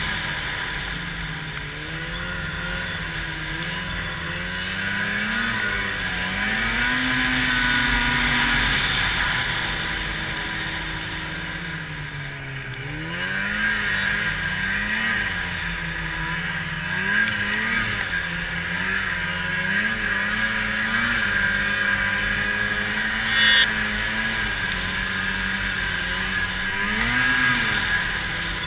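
Arctic Cat 700 snowmobile's two-stroke engine running under way, its pitch rising and falling again and again as the throttle opens and closes, over a steady hiss of track and snow. There is one sharp knock about three-quarters of the way through.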